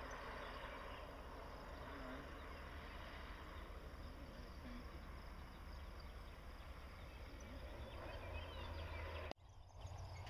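Faint, steady outdoor background noise with a constant low rumble; it cuts off abruptly near the end.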